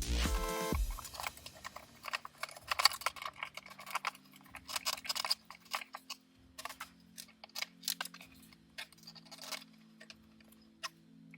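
Irregular small clicks and taps of a screwdriver and screws being fitted as a car's center console armrest is screwed back into place. There is a brief tail of electronic music at the very start.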